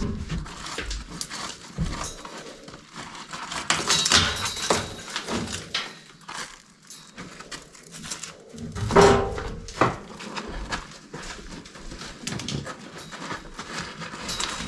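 Stones and crumbling mortar being pulled by gloved hands from an old rubble stone wall: irregular scraping, grit trickling and knocks as stones are set down on a steel scaffold platform, loudest about nine seconds in.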